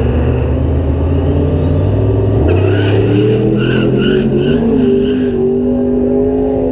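Diesel pickup truck launching down a drag strip: its low engine note climbs in pitch as it pulls away, then drops away about two and a half seconds in as the truck gets far down the track. Over it, a run of about five short high-pitched calls follows at roughly two a second.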